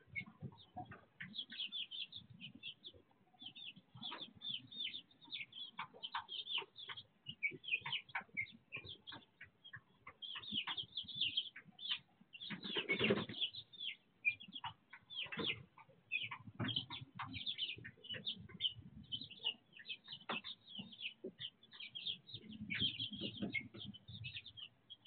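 A brood of young chicks peeping continuously in many short, high chirps. About thirteen seconds in there is a brief, louder rustle.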